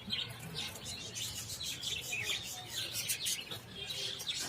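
A flock of budgerigars chattering, with many quick, high chirps overlapping throughout.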